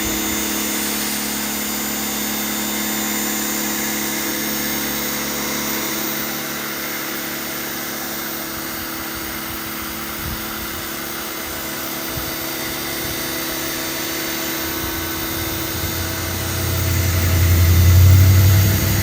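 Certified 1800 PSI brushed electric pressure washer running steadily with the trigger held, its motor and pump giving a constant hum with the spray hissing. A louder low rumble swells in near the end.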